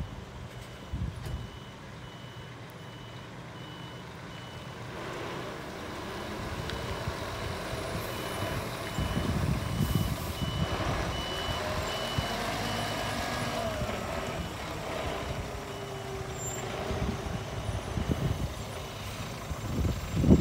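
Scania G490 hooklift truck reversing: its back-up alarm beeps in an even, repeating pattern over the running diesel engine. The engine grows louder as the truck backs closer.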